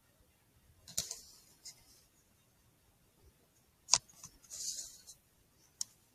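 Handling noise from the rifle and scope: three sharp clicks, the loudest about four seconds in, with brief scratchy rustling between them, picked up by the scope's built-in microphone.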